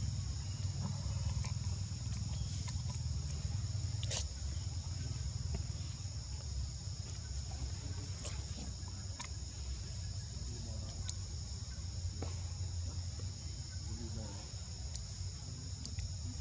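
Steady high-pitched insect chorus, with a low rumble underneath and a few faint clicks, the clearest about four seconds in.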